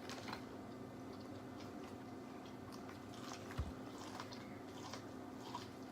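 Faint eating and food-handling sounds: scattered soft clicks and small taps, with a brief low thump about three and a half seconds in.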